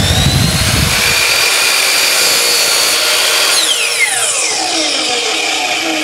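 12-inch Ryobi sliding compound miter saw starting up with a rising whine, running at full speed while it is brought down through a wooden board, then switched off about three and a half seconds in, its whine falling in pitch as the blade spins down.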